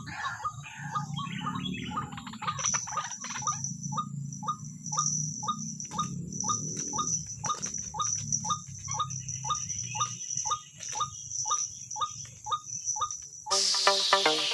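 White-breasted waterhen calling: overlapping calls at first, then a monotonous series of short, repeated 'kru-ak' notes about two a second. Electronic music cuts in about a second before the end.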